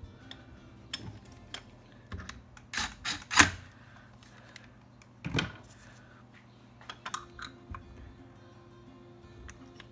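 Scattered short clicks and clinks of a small box wrench and screws handled on the head of a Thomas aerator pump during a reed change. The loudest cluster comes about three seconds in, over quiet guitar music.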